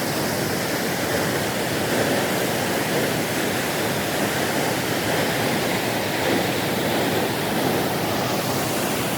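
Waterfall: a steady, loud rush of falling water with no break.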